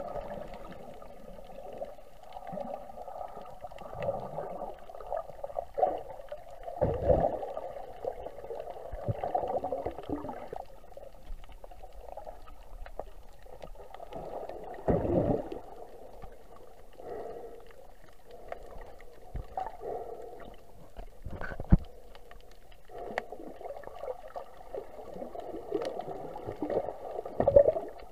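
Muffled underwater sound picked up through a submerged camera: gurgling and rushing water that swells and fades, with a few dull thumps and one sharp click.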